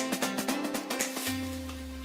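Background music: plucked, picked notes over a steady pulse, with a low sustained bass note coming in about halfway through.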